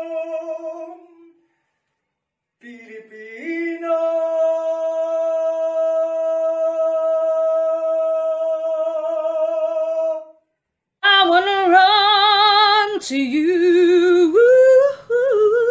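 Unaccompanied solo singing. A man holds a long high note that breaks off about a second in, then after a short silence slides up into another note held steady for about seven seconds. After a brief gap a woman sings a melodic line with wide vibrato.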